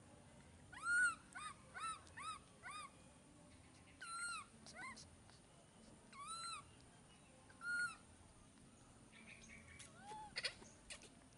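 Baby monkey giving short, high squeaky calls, each rising then falling in pitch. Five come in quick succession about a second in, then single calls around four, six and eight seconds in and near the end, with a few faint clicks.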